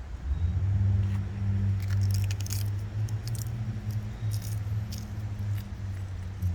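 A steady low hum, with a few short crackling clicks as fresh Indian borage (panikoorka) leaves are crushed and squeezed by hand to wring out their juice, about two seconds in and again around four and a half seconds.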